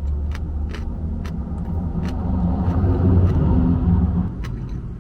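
A car going past close by: a low engine-and-tyre rumble that builds, is loudest a little after three seconds in, and drops away just after four seconds, with a few light clicks over it.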